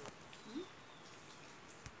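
Quiet outdoor background in a pause between speech, with a short faint vocal sound about half a second in and a single sharp click near the end.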